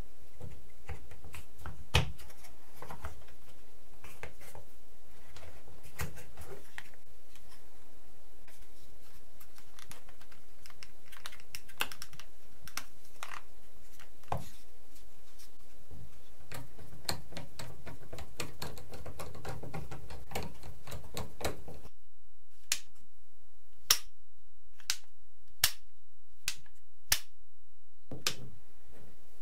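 Irregular sharp clicks and snaps from handling a homemade rubber-band revolver's mechanism. Near the end there are about seven crisp clicks, roughly a second apart.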